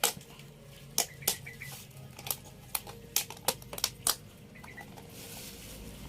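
A quick, uneven series of sharp clicks and knocks, about a dozen in four seconds, over a faint low hum, as of a package being handled and opened.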